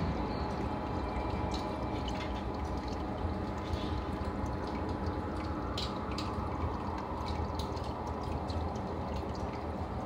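Aquarium filter running: a steady trickle and bubbling of water over a low, steady pump hum, with a few small drip-like ticks.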